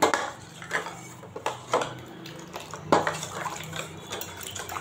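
Steel spoon stirring gram-flour batter in a stainless steel bowl: wet sloshing with several sharp clinks of the spoon against the side of the bowl, mixing the batter smooth and free of lumps.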